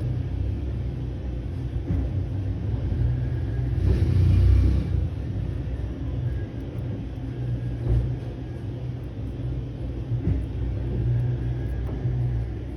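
Steady low rumble of background noise, swelling louder for about a second around four seconds in.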